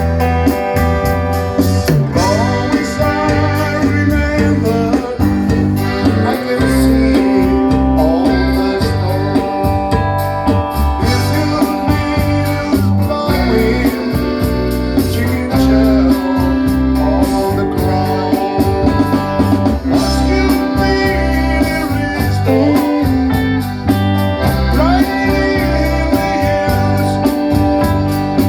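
A live band playing a rock song, with keyboard, bass and drums keeping a steady beat.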